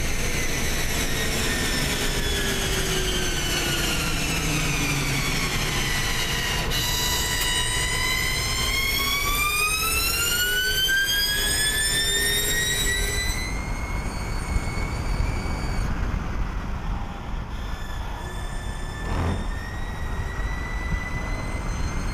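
Hyundai Veloster N ETCR electric race car's drivetrain whining over road and wind rumble. The whine, with many overtones, falls in pitch, then rises again and levels off as the car's speed changes. A single knock comes late on.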